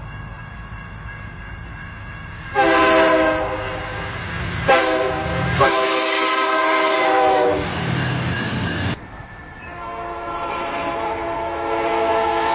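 Train horn blowing as a train passes: one long blast, one short and one long, over the low rumble of the train. Before the horn, faint steady ringing of the crossing signal. The sound cuts off suddenly, and a second train horn begins and sounds a long blast near the end.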